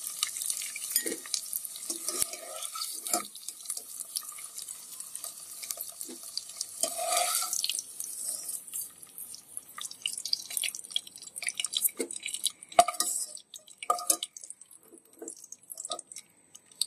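Peeled boiled eggs frying in hot oil in a saucepan: a steady sizzle that thins out about halfway to scattered pops and crackles as the eggs are lifted out with a wire-mesh skimmer, which knocks against the pan a few times.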